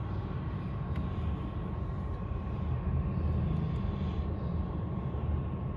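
Steady low rumble and hum of machinery, with a faint, steady high-pitched whine over it.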